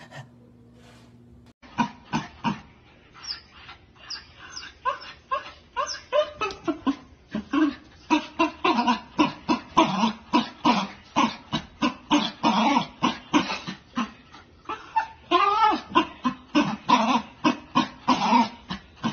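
Small puppy barking in a rapid, unbroken string of short yaps, about three or four a second, starting near two seconds in.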